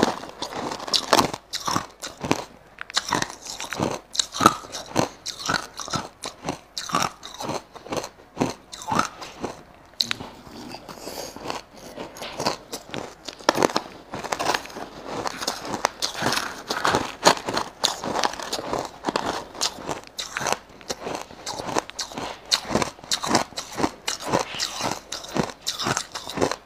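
Crushed ice being chewed close to a clip-on microphone: rapid, irregular crunches, several a second, a little sparser about ten seconds in.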